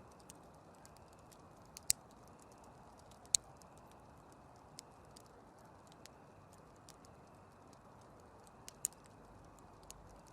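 Campfire crackling: irregular sharp pops and snaps of burning wood over a soft steady hiss, the loudest pops about two seconds in, a little after three seconds, and near nine seconds.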